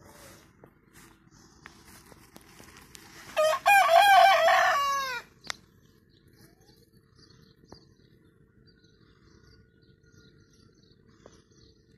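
Rooster crowing once, about three seconds in: a short first note, then a longer loud crow of under two seconds that drops in pitch at the end.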